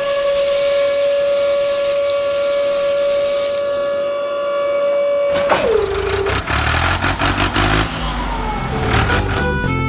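A long, steady horn-like tone holds one pitch for about five and a half seconds, then drops in pitch and stops. Low rumbling and clattering follow, and music begins near the end.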